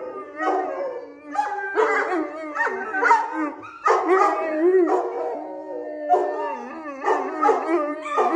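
Neapolitan mastiff vocalizing in a string of short, wavering calls that rise and fall in pitch, with brief breaks between them.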